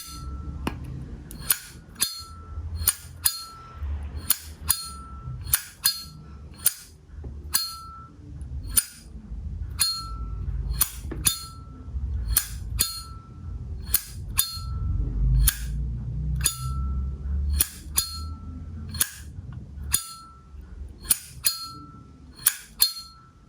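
Vintage 1984 Zippo lighter's lid flicked open and snapped shut over and over: a sharp metallic click, a brief ringing ping, then the click of the lid closing, about once every second or so.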